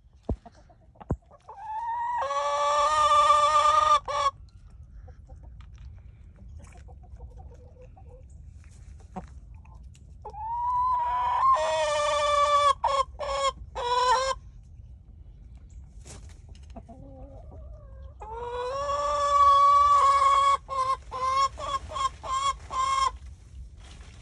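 A chicken making three long, loud calls. Each rises at the start, is held, then breaks up into a quick run of short notes.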